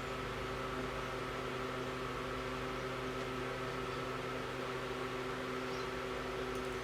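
Steady hum of a running electric motor, with several constant tones held unchanged over a low rumble.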